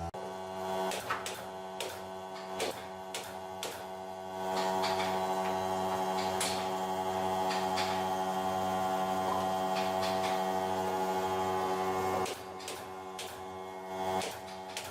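Steady electric motor hum with scattered sharp clicks and knocks. It grows louder from about four and a half seconds in and drops back about three seconds before the end.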